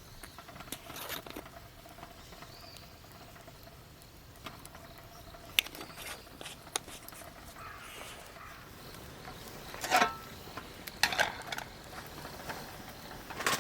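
Sparse light clicks and knocks, with two louder bursts of clattering knocks near the end.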